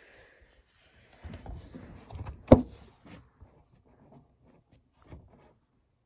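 Low rumbling and bumping, like a phone being handled, with a single sharp click about two and a half seconds in, then a few faint ticks.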